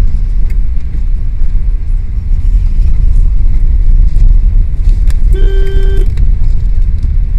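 Steady deep rumble, with a single short horn toot about five seconds in.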